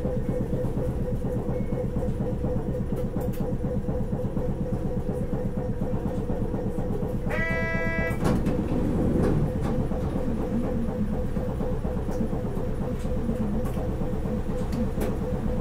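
Sapporo streetcar M100-class car M101 heard from on board: the steady rumble of the car running on its rails, with a constant hum from its running gear. About halfway through, a short pitched tone sounds once for just under a second.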